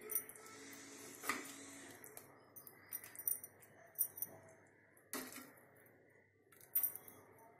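Steel ladle clinking and scraping against the rims of a cooking pot and a serving bowl while curry is ladled out: a handful of sharp, short clinks a second or more apart.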